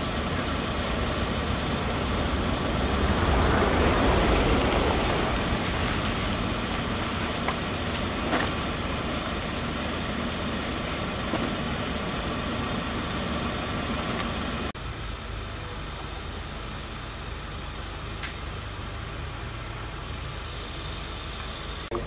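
Garbage truck engine running steadily with street noise, swelling for a couple of seconds a few seconds in. About fifteen seconds in, the sound cuts abruptly to a quieter, steady background hum.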